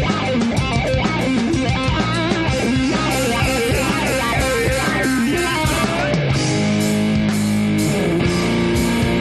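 Rock band playing live: distorted electric guitar lead over bass and drums, with quick notes at first and longer held notes from about six seconds in.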